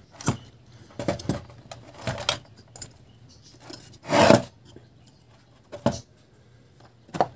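Metal amplifier chassis and its wires being handled during wiring: scattered short scrapes, rubs and light metallic clicks, with a longer scrape about four seconds in.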